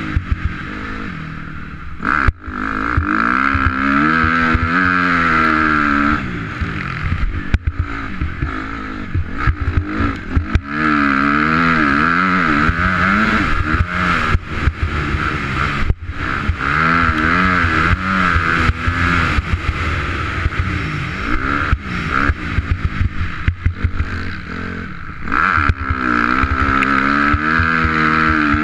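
2004 Honda CRF250R's single-cylinder four-stroke engine being ridden hard, its pitch rising and falling over and over as the throttle is opened and shut through the gears, with a few brief drops in sound.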